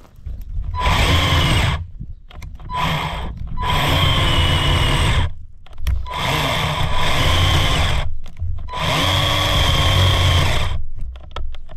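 Greenworks 24 V 10-inch cordless electric chainsaw cutting into a log in about five short runs of one to two seconds. The motor spins up at the start of each run and stops between them as the battery is starting to give up.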